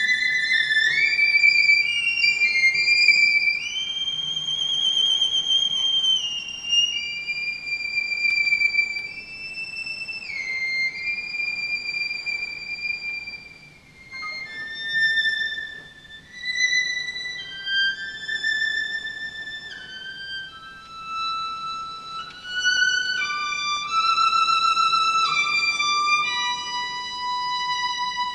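Solo violin playing a slow, high melody of long held notes with slides between them, the line stepping gradually lower toward the end.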